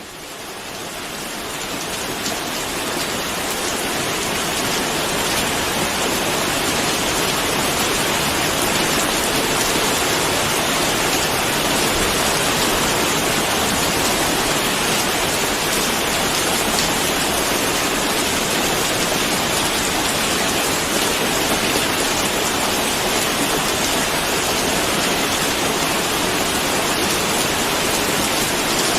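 Steady, dense rainfall, a continuous hiss of rain, fading in over the first couple of seconds and then holding even.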